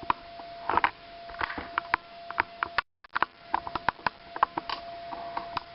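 Marker pen on a whiteboard: a series of short taps and clicks as lines are drawn, over a faint steady whine, with a brief dropout a little before halfway.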